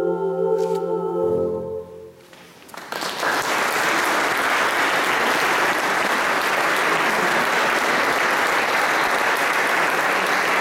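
A choir and keyboard hold a final chord that ends about two seconds in; a moment later audience applause begins and continues steadily.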